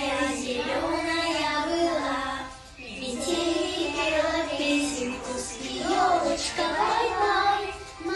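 Children singing a song with musical accompaniment, the phrases broken by short pauses about two and a half seconds in and near the end.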